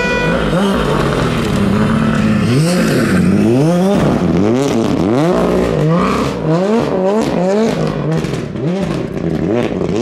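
Ford Fiesta R5 rally car's turbocharged four-cylinder engine at full throttle, held high at first, then revving up and down rapidly about twice a second from a couple of seconds in as the driver works the throttle sliding through the snow. Sharp crackles run through the middle of the run.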